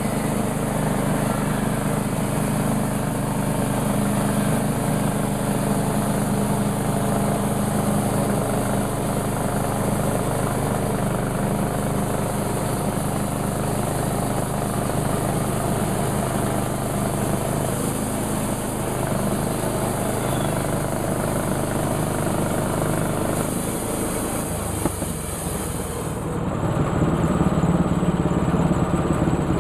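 Sawmill's engine running steadily; about 26 seconds in its pitch drops and it gets louder.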